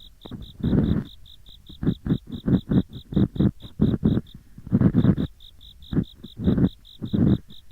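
Ear pick scraping hard in both ears at once, a rough gori-gori scratching in uneven strokes, some quick and some longer. Behind it, autumn insects chirp in a steady high-pitched pulse of about eight chirps a second.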